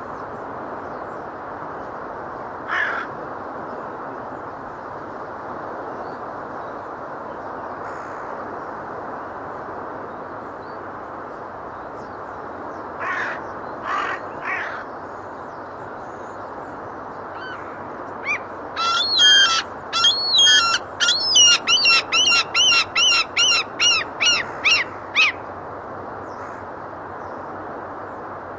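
Gulls calling over a steady rushing background. There is one call about three seconds in and a few more around the middle, then a long run of loud, rapidly repeated calls lasting about seven seconds near the end.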